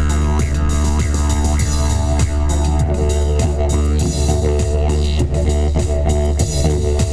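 Didgeridoo playing a continuous low drone, with quick rhythmic pulses and shifting overtones shaped by the player's mouth and voice.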